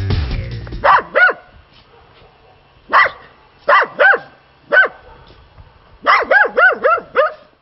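A dog barking: two barks about a second in, four spaced barks over the next two seconds, then a quick run of about six barks near the end.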